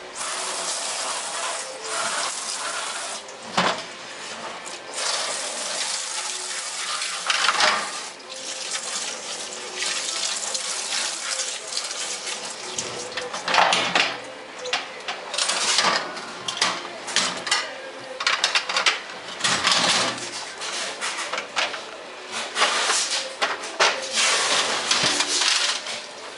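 Running water splashing in a stainless-steel washing tank, rising and falling in irregular surges, with occasional metal clatter.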